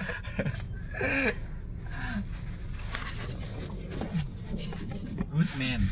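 Steady low rumble inside a car's cabin, with a few short, faint voice sounds.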